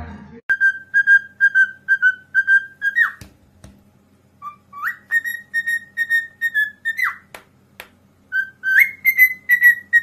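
Cockatiel whistling: three phrases of short, evenly spaced notes on one high pitch, about four a second, each phrase ending in a quick downward slide. A few faint clicks fall in the pauses between phrases.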